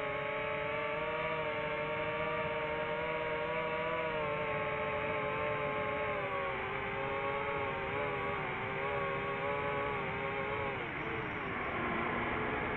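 DJI FPV drone's motors and propellers whining steadily in flight, the pitch wavering slightly, dipping about eleven seconds in and climbing again near the end.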